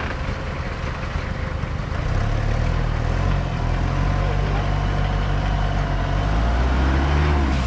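A motor vehicle's engine running, getting louder about two seconds in, with a brief rev that rises and falls in pitch near the end.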